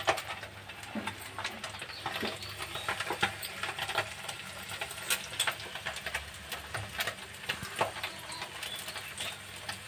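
Egg omelette frying gently in oil in a frying pan, with faint, irregular crackling and popping.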